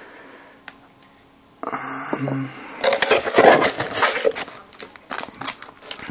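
Cardboard box and plastic packaging rustling and crinkling as a sleeved set of filters is pulled out. Dense crackling starts about three seconds in, after a quieter start with a single click.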